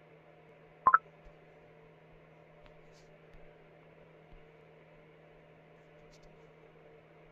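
A sharp double click about a second in as the socket sets are handled, followed by a few faint ticks, over a steady low hum.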